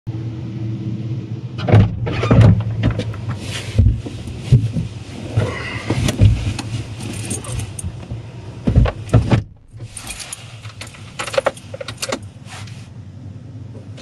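Inside the cab of a 1994 Isuzu Elf truck: a steady low engine drone, with keys jangling and repeated rattles and knocks from the cab.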